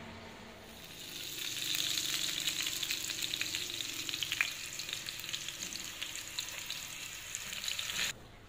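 Sweet potato slices frying in hot oil in a pan, a steady sizzle full of small crackles and pops. It rises about a second in and cuts off suddenly near the end.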